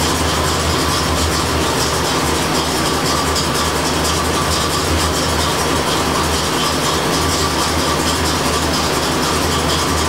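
1985 Corvette's 5.7-litre tuned-port-injected V8 idling steadily, with a steady hum and a constant whirring tone over it.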